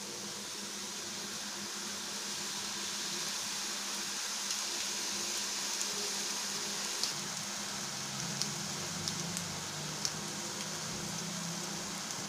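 Folded maida dough pieces deep-frying in hot oil in an iron kadai: a steady sizzling hiss, with occasional small pops from about four seconds in.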